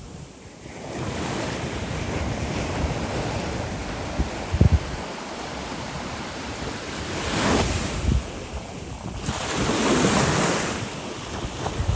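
Sea waves breaking on the shore, a continuous surf wash that swells as waves crash about seven and ten seconds in. Wind rumbles on the microphone in brief low thumps around the fifth second.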